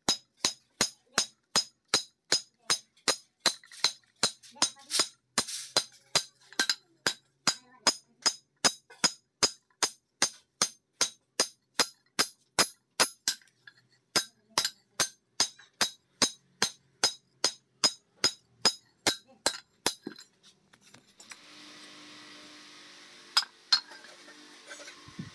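Hand hammer striking an iron meat-cleaver blade on a steel anvil in an even rhythm of about two to three blows a second, each blow a bright ringing clink, with a short pause about thirteen seconds in. The hammering stops about twenty seconds in, giving way to a steady low rushing noise and two light knocks.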